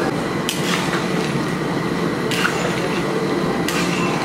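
A metal ladle knocks three times against a large pot of boiling chicken curry, over a steady rushing noise from the boiling pot.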